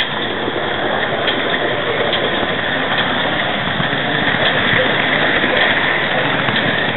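Model train rolling along the track, picked up by a small camera riding on the train: a steady rattling running noise of wheels and drive, with occasional faint clicks, likely at rail joints or points.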